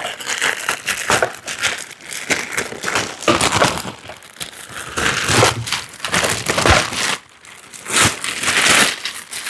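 Plastic and cardboard packaging being handled, crinkling and rustling in irregular bursts, with a short lull a little after two-thirds of the way through.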